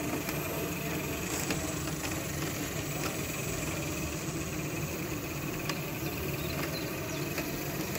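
3/4 inch scale live-steam Sentinel steam waggon model running as it drives slowly over cobblestones, an even mechanical sound at a constant level.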